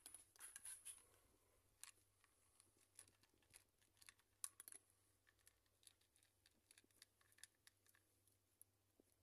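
Cats eating from their bowls: faint, irregular crunching and clicking as they chew their food, busiest in the first second and again around the middle.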